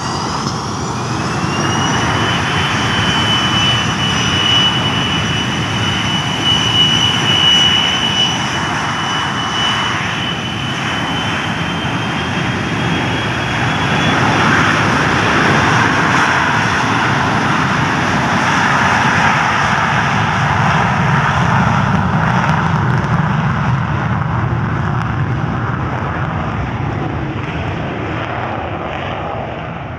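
Military aircraft's engines running at takeoff power: a loud roar with a high whine that rises in pitch in the first couple of seconds, then holds steady. The whine fades after about fourteen seconds, and the roar slowly dies away toward the end as the aircraft departs.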